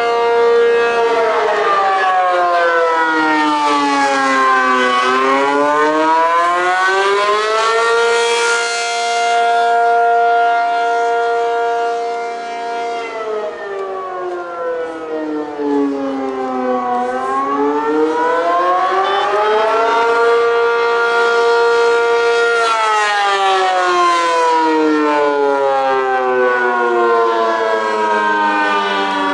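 ACA P-50 outdoor warning siren sounding the attack signal: a loud wailing tone that holds at its top pitch, falls for about four seconds, then climbs back up and holds again. It drops three times, about a second in, near the middle and near the end.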